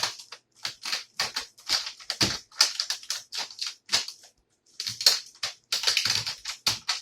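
Irregular sharp plastic clicks and crackles from the plastic frame and keyboard cage of an HP 15-cs0061cl laptop being pried apart, with a short pause about four and a half seconds in.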